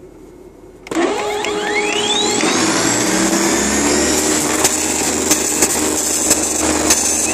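TallyGenicom T6215 line matrix printer starting an all-character test print. About a second in it starts abruptly with a whine rising in pitch as the print mechanism spins up, then settles into a loud, steady printing rattle with occasional sharp clicks.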